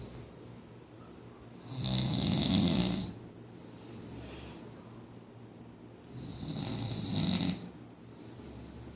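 A man snoring in his sleep: two loud rasping snores, each about a second and a half long and about four seconds apart, with quieter breathing between them.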